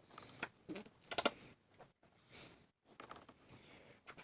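Small metal camera parts clicking and scraping as the rusted-up mechanism of an old Ensign Ful-Vue box camera is worked by hand, with a tight cluster of clicks about a second in.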